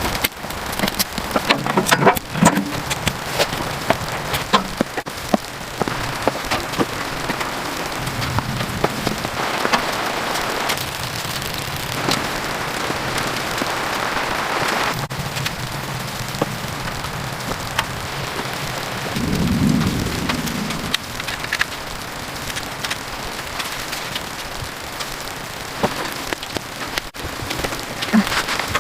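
Steady patter of rain falling on a surface, with many scattered drip ticks, and a brief low rumble swelling about two-thirds of the way in.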